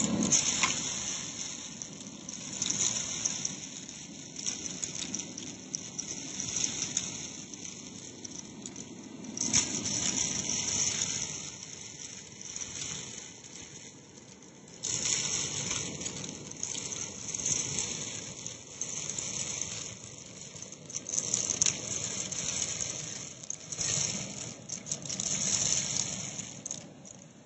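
Vacuum cleaner hose with a crevice tool sucking spilled rice and bath salt out of carpet: a steady suction hiss with irregular surges of grains crackling and rattling up the hose as the tool moves through the piles.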